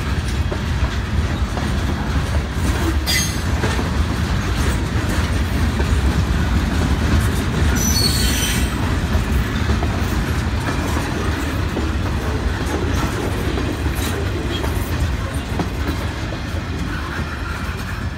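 Freight train cars rolling past with a steady heavy rumble. Brief high-pitched squeals come about three seconds in and again, more strongly, around eight seconds. The noise eases near the end as the train moves away.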